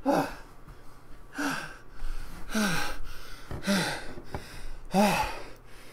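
A man's short wordless grunts and exclamations, about five of them roughly a second apart, each rising and then falling in pitch, with breath in them.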